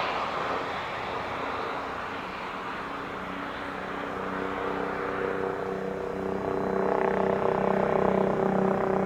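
Embraer Phenom 300 business jet's turbofan noise fading away as it rolls out after landing. From about four seconds in, a steady droning with several pitched tones grows louder.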